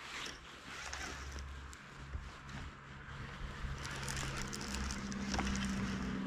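A baitcasting reel being handled and cranked after a bite, with a few short clicks, over wind noise on the microphone. A steady low hum grows louder in the second half.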